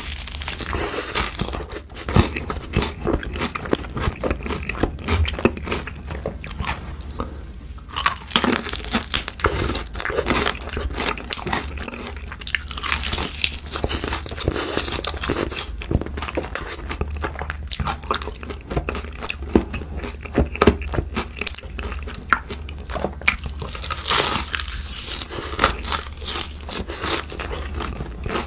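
Crispy fried chicken crunching as it is bitten and chewed close to the microphone: many quick crackling crunches, with a brief lull about seven seconds in.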